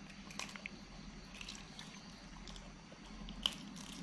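Two macaques biting and chewing raw green bean pods: a few soft crunches and snaps, scattered and faint.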